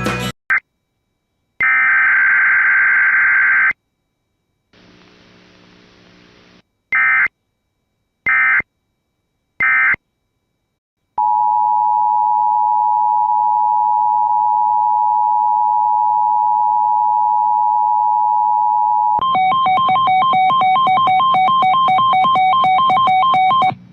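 Emergency Alert System data bursts: a burst of about two seconds, then three short bursts about a second and a half apart. Then the two-tone EAS attention signal sounds steadily for about eight seconds, and a rapidly pulsing multi-tone signal follows, marking the start of a new alert.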